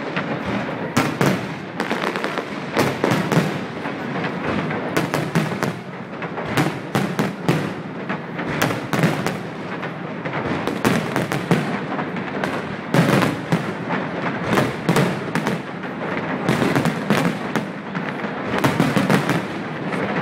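Fireworks display: a dense, continuous barrage of aerial shell bursts, many sharp bangs a second over steady crackling.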